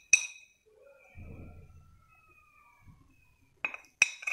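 A spoon clinking against a glass bowl as ground spice mix is scraped out of it: one sharp ringing clink at the start, then three more in quick succession near the end.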